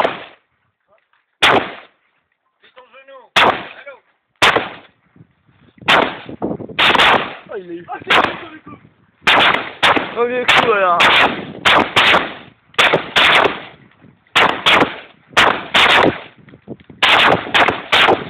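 M16 rifle (5.56 mm) fired in single shots, a long irregular string of loud cracks, each with a short echo; the shots come faster in the second half.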